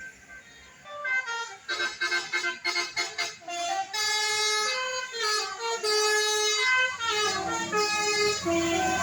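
A bus's multi-tone 'telolet' air horn playing a melody: a quick run of short notes, then longer held notes stepping down in pitch.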